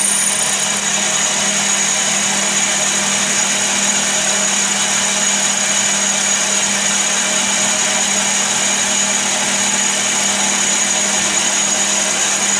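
Chester DB10 bench lathe running steadily while a twist drill in the tailstock chuck is fed into a spinning brass rod: an even motor and gear hum with a high steady whine above it.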